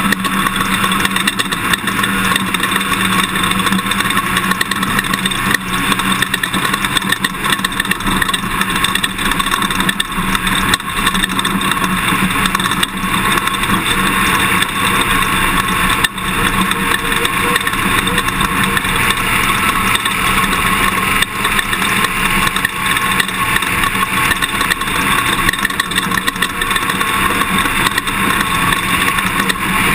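Toyota Tundra pickup truck driving over rough dirt terrain: its engine runs steadily under a constant din of knocks and rattles from the bumpy ground.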